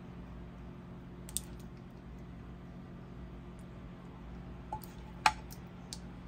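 Metal ladle scooping thick gravy from a pan onto a plate. There is a light click about a second in, then a few more clicks of the ladle against the pan near the end, the loudest about five seconds in, over a steady low hum.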